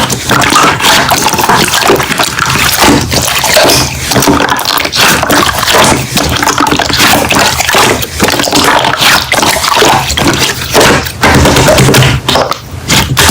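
Slime being squished and poked, with dense, loud wet clicking and popping throughout.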